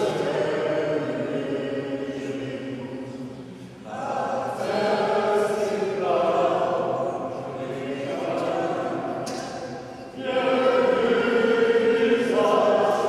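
Church congregation singing together, in long sustained phrases with short breaks for breath about four and ten seconds in.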